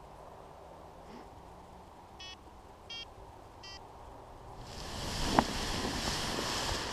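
Three short electronic beeps about 0.7 s apart, then wind noise on the microphone that rises sharply about four and a half seconds in, with a sharp click, as the camera moves down the slope.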